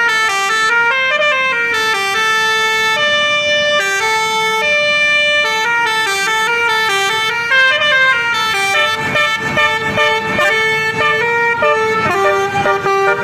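Bus 'telolet basuri' multi-tone musical horn playing a tune, its loud reedy notes stepping up and down in a melody. From about nine seconds in, an uneven rattling noise runs underneath.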